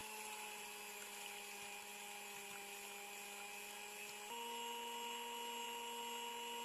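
Electric hand mixer motor running steadily with a faint hum as its twin steel beaters whip eggs to a froth for sponge cake batter; its pitch steps up a notch about four seconds in.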